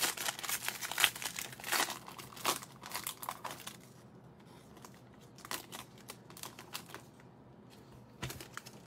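Foil wrapper of a 2020 Bowman Draft baseball card pack being torn open and crinkled, a dense run of crackles over the first four seconds, then a few scattered lighter rustles.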